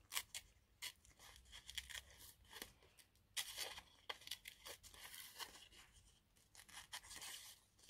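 Faint, irregular snips and rustles of paper being fussy cut with scissors and handled.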